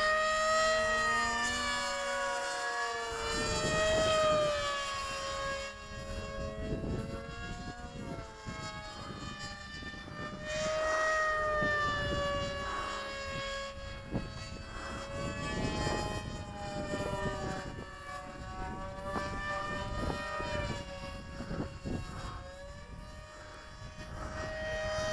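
Electric RC model planes, a FunJet pusher jet and a flying wing, flying past with a high motor-and-propeller whine. The pitch rises and falls over and over as they pass and change throttle, and at times two whines sound together.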